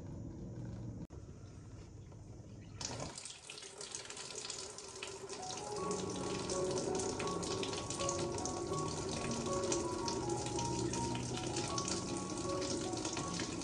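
Water running from a tap, starting abruptly about three seconds in, filling water for a bath. Light background music with a melody comes in about six seconds in.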